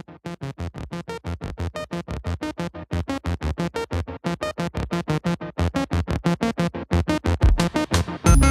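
Electronic background music: a fast run of short, choppy synthesizer notes, with heavy bass hits coming in near the end.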